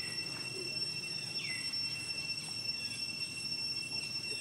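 Steady high-pitched drone of insects, with a few short chirps that glide downward in pitch over it.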